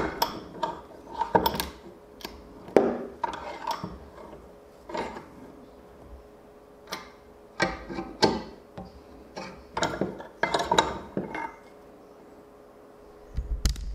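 Bearings being push-fitted into a 3D-printed plastic gear by hand: irregular clicks and light knocks of small hard parts, with a low thump near the end.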